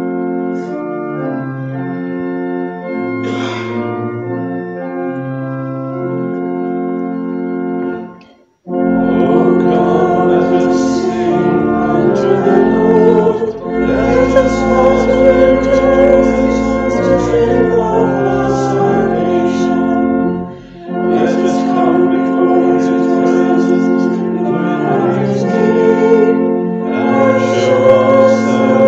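Church organ playing held chords, breaking off about eight seconds in. It then starts again, accompanying congregational singing, with a short pause about twenty seconds in.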